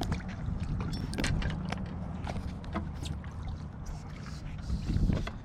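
Boat motor running with a steady low hum, with scattered clicks and knocks over it.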